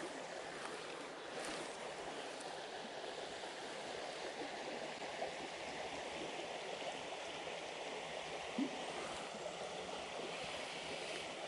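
Creek water running over rocks, a steady rushing, with a faint click about eight and a half seconds in.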